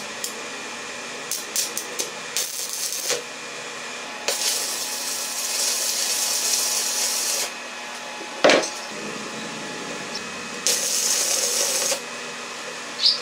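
Stick (arc) welding on steel plate: a few brief crackling arc strikes as tacks, then two longer stretches of steady sizzling arc, with a single sharp knock between them.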